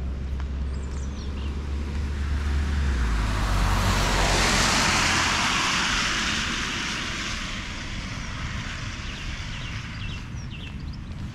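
A car passing on a wet road: the hiss of its tyres on the wet tarmac swells to its loudest about four to five seconds in, then fades away.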